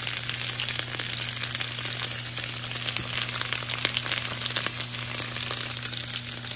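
Diced potatoes frying in oil in a skillet: a steady sizzle with dense, fine crackling.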